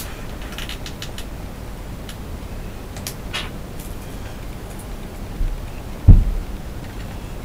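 Hands handling fan-grill and case-panel parts: a few light clicks and scrapes, then a single loud low thump about six seconds in.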